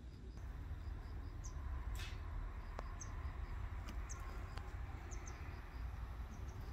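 Outdoor ambience: faint high chirping, some of it repeating evenly several times a second, over a low steady rumble, with a few soft clicks.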